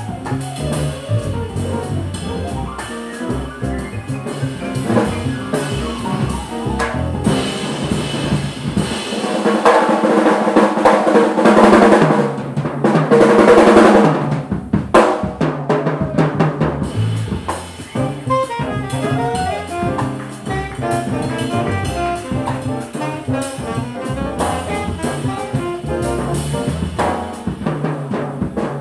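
Live jazz quartet playing: saxophone, upright piano, double bass and drum kit together. The music swells to its loudest in the middle and eases back after.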